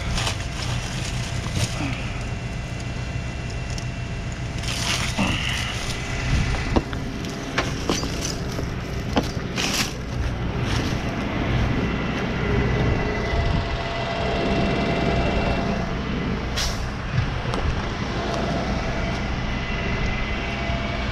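Heavy tow truck's engine idling steadily, with a few sharp knocks and rustles of handling and movement through dry leaves.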